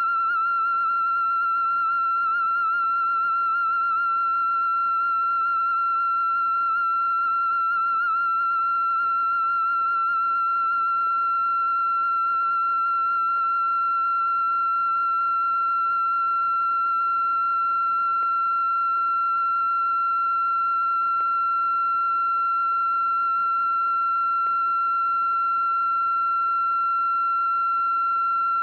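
A single steady high-pitched tone with a few faint overtones over a light hiss. It wavers slightly in pitch for roughly the first ten seconds, then holds level.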